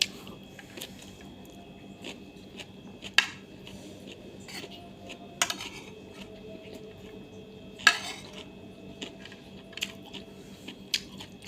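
Eating utensils clinking against dishes during a meal: scattered sharp clinks, the loudest about three, five and a half and eight seconds in, over a faint steady hum.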